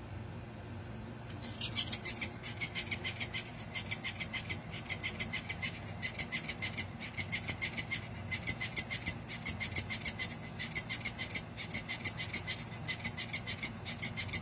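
Motorized flopping toy fish flapping its tail: a rapid, regular clicking rattle, about five clicks a second, that starts about a second and a half in.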